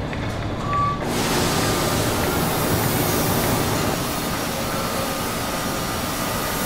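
Industrial machinery running with a loud, steady hiss and a faint hum, cutting in suddenly about a second in after a short beep.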